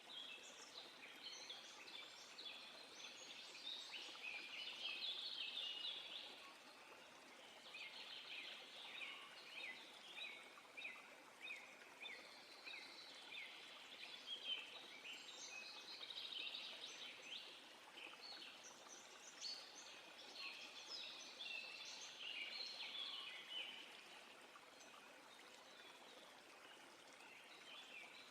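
Songbirds singing: long runs of rapid, high chirps with brief pauses between runs, thinning out near the end, over a faint steady hiss.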